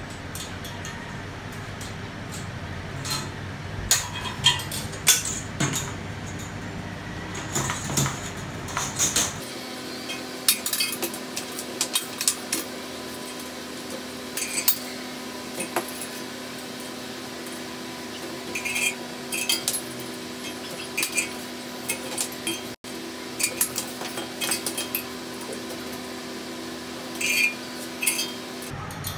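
Small steel hardware (a bolt, nut and pin) clinking and tapping as it is handled with gloved hands, in scattered sharp clicks and short clusters of them, over a steady hum.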